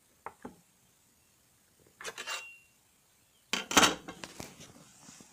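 Crinkle cutter blade clanking and scraping against a metal soap cutting guide as it is pushed down through a loaf of soap: two light clicks at the start, a scrape with a brief metallic ring about two seconds in, and a louder metal clatter about three and a half seconds in that trails off in scraping.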